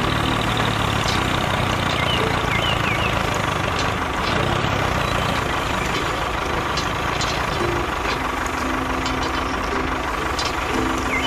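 Tractor engine idling steadily, with a few short high chirps about two seconds in.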